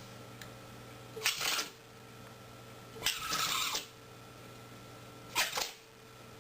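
A dog sneezing three times, about two seconds apart; the middle sneeze is longer than the other two.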